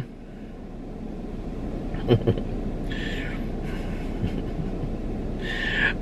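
Steady low rumble of car cabin noise, with a few brief faint sounds about two and three seconds in.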